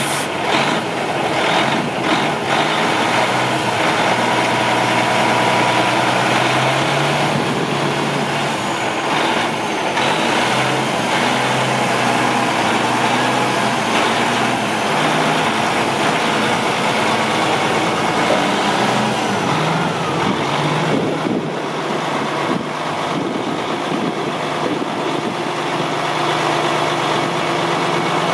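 Diesel engine of a 2007 Sterling Acterra flatbed dump truck running steadily at idle. Its tone shifts a little as it drives the hydraulic hoist that tips the flatbed dump body up.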